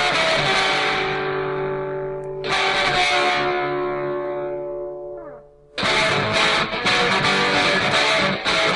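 Music: electric guitar chords struck and left ringing, fading away, twice, the second ending in a downward slide, then a fuller band section starts about six seconds in.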